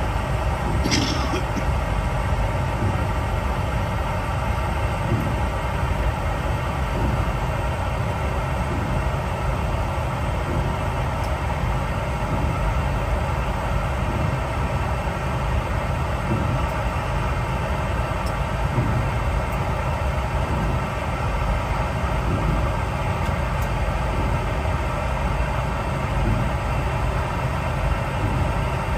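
Steady low rumble and hum of a Boeing 717-200 airliner cabin, holding at an even level throughout.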